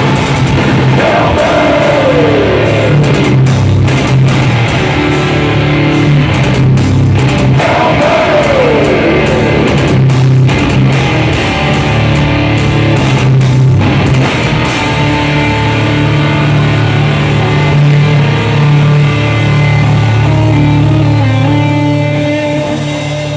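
Heavy metal band playing live: distorted guitars over bass and drums, with two long falling slides about one and eight seconds in, easing off slightly near the end.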